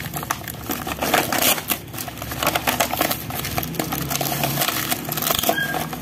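Plastic packaging wrap and cardboard crinkling and rustling as they are handled and pulled apart, a dense run of crackles and crisp clicks.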